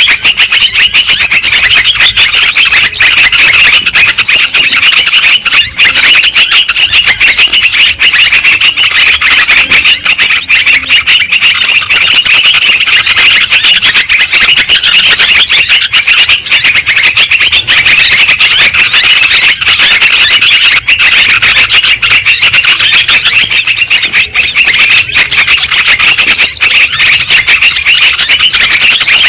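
Bird-lure recording of many yellow-vented bulbuls (trucuk) calling at once: a loud, dense, unbroken chorus of rapid chattering calls, meant to draw wild birds in to be trapped.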